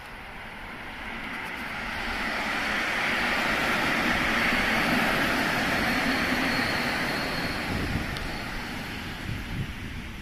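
EN57-type electric multiple unit passing close by as it leaves the stop. Its rushing run-by noise swells to a peak about halfway through and fades as the train moves off.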